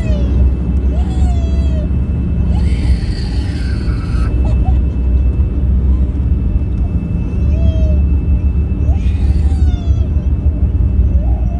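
Jet airliner cabin noise while rolling along the runway: a loud, steady low rumble of engines and wheels, with a faint steady high whine. Short high-pitched squeals come and go every second or two.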